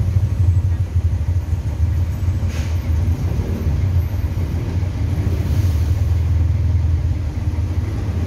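City bus engine running with a steady low rumble, heard from inside the bus cabin while it moves slowly in traffic.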